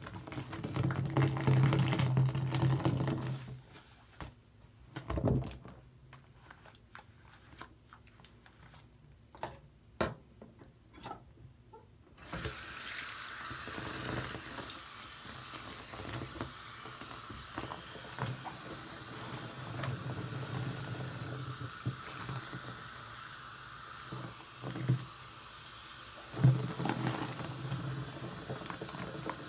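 Bathroom tap water splashing into a basin of shaving-cream foam, with hands squishing the lather and a sponge squelching. A steady rush of running water sets in suddenly about twelve seconds in, and louder wet squelches come near the end as the sponge is squeezed.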